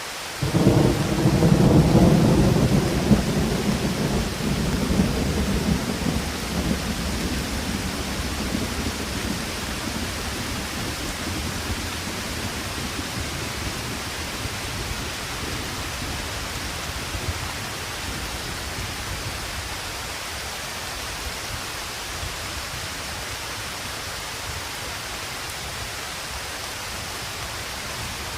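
A roll of thunder breaks in suddenly about half a second in, loudest for the first few seconds, then rumbles away slowly over about ten seconds, over steady rain falling.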